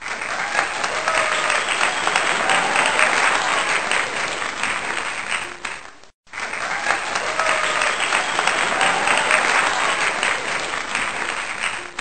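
Crowd applauding and cheering, the same stretch heard twice with a brief break about six seconds in.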